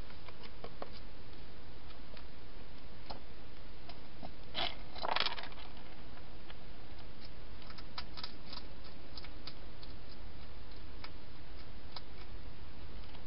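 A hedgehog eating dry food in a plastic-box feeding station: scattered small crunching clicks, with a louder scuffling burst about five seconds in, over a steady hiss and low hum.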